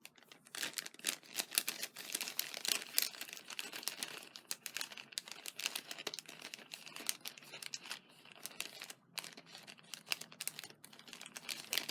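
Crinkly plastic packaging being handled, with a dense run of crackles and rustles as small paper die cuts are pulled out; the crackling thins out with short pauses near the end.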